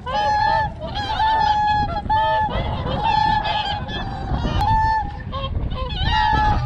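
A flock of whooper swans calling: many short honking calls overlapping one after another.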